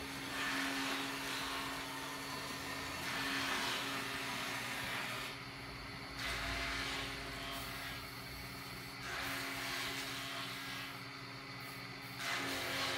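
Electric sander running on a round wooden table top, a steady motor hum under a sanding hiss that swells and eases every few seconds as it is worked across the wood.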